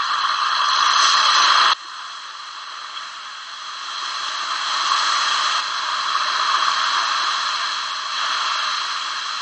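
Steady, loud hissing noise with no tones in it, dropping abruptly about two seconds in and then slowly swelling back up.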